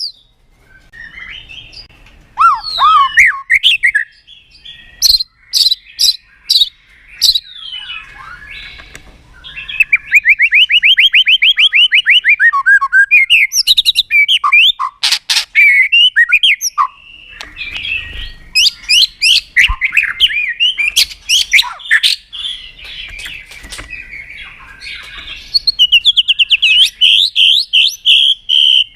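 White-rumped shama (murai batu) singing a loud, varied song: sweeping whistled notes, two long runs of fast repeated trill notes (one starting about a third of the way in, another near the end), and a few harsh chattering notes in between.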